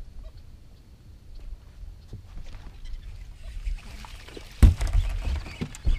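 Low rumble of water and wind around a bass boat, then about four and a half seconds in a sudden loud thump on the boat deck as the angler sets the hook on a fish, followed by a few lighter knocks.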